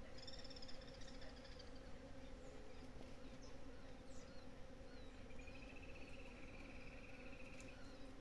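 Many bees of several species, honeybees and native stingless bees, buzzing steadily as they forage on flowering mutambo blossoms, a faint even hum. Birds give a high trill near the start and another, longer trill past the middle.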